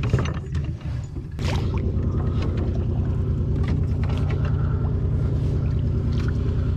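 A small motor on a canoe starts running about a second and a half in and then runs steadily, after a few knocks and clatter at the start.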